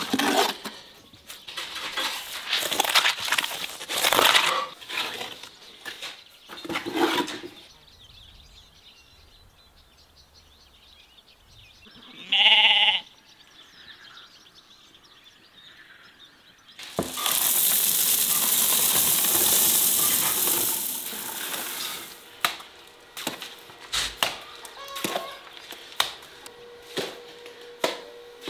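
Bricklaying: bricks scraped and knocked into place against concrete blocks, then sharp taps and clicks of the work near the end. A goat bleats once, briefly, midway, and a steady hiss runs for about five seconds after it.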